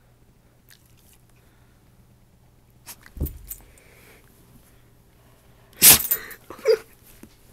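A dog playing on a carpeted floor: quiet at first, a thump about three seconds in, then a sharp loud burst of noise about six seconds in and a shorter one with a brief pitched sound just after.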